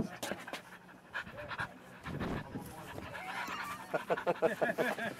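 A dog panting rapidly and close to the microphone, with a run of quick, slightly voiced breaths in the second half.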